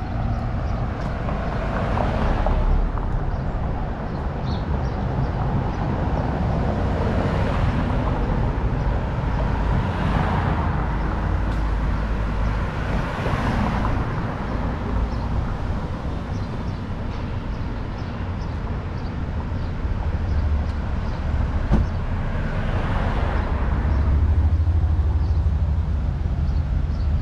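Downtown street traffic: a steady low rumble with several cars passing one after another, each swelling and fading. A single short knock sounds about two-thirds of the way through.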